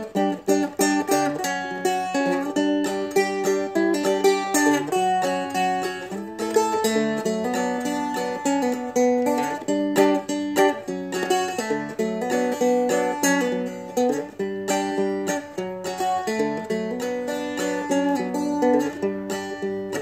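A four-string Seagull Merlin, a small mountain-dulcimer-style instrument, played two-finger clawhammer style: a steady, continuous run of plucked melody notes ringing over one another.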